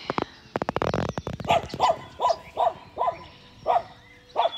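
A dog barking repeatedly, about seven short barks in quick succession, after a quick run of clicks at the start.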